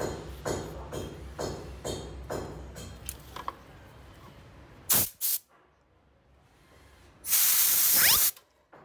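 Miniature brass steam siren being test-blown with compressed air from a blow gun while it is debugged: two short puffs about five seconds in, then a loud blast of about a second near the end. The blast is mostly hiss with only a faint rising whistle in it. Before the puffs come soft rhythmic handling strokes, about two a second.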